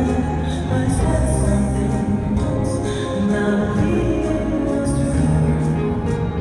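Recorded dance music with a singing voice, played for ballroom dancing.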